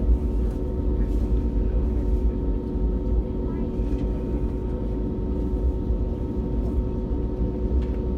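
Airliner engines running steadily while the plane taxis: a deep, even rumble with a constant hum over it.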